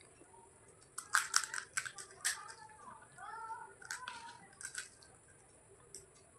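Close-miked eating: a quick run of sharp crunches about a second in as crisp food is bitten, then softer wet chewing and mouth sounds.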